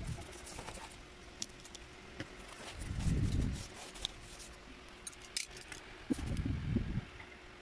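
Corrugated cardboard being cut with a snap-off utility knife and handled, with cut pieces pressed out by hand. There are two stretches of low crunching, about three and six seconds in, with light clicks and scrapes between them.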